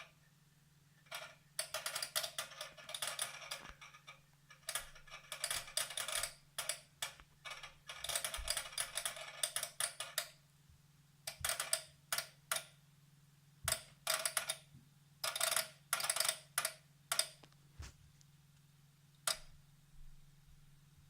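Irregular clicking and ticking from inside the chassis of a Denon AVR-2113 AV receiver: scattered single clicks alternating with dense, rapid runs of clicks, over a steady low hum. The clicks are a fault noise whose cause is unknown.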